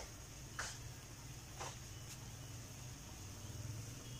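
Beaten egg and sliced sponge gourd frying quietly in a wok: a faint steady sizzle with two or three soft pops about a second apart, over a low steady hum.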